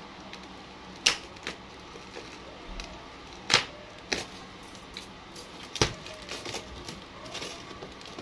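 Pliers snipping through the steel baling wires around a bale of clothes: three loud sharp snaps, about two and a half seconds apart, with several fainter clicks between them.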